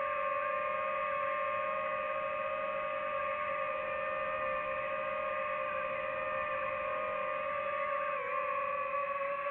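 DJI FPV drone's motors and propellers whining at a steady pitch, dipping briefly in pitch near the end as the throttle eases.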